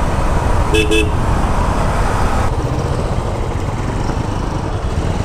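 Royal Enfield Bullet's single-cylinder engine running under way, with steady road and wind noise, and one brief vehicle horn toot about a second in.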